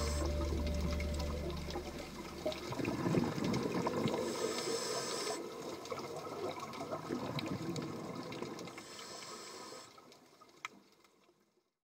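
Scuba diver breathing through a regulator underwater: a hiss with each inhalation, repeating about every four to five seconds, between gurgling bubbles of exhaled air. The sound fades out shortly before the end.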